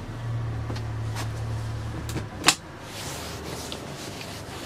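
Motorboat engine running steadily under reverse throttle to brake the boat's way, then dropping away about two seconds in, followed by a single sharp knock.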